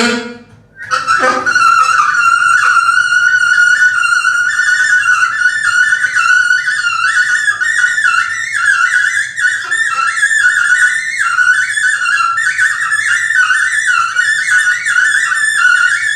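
Music: a single high-pitched instrument plays one continuous, wavering melodic line, coming in after a brief break about a second in.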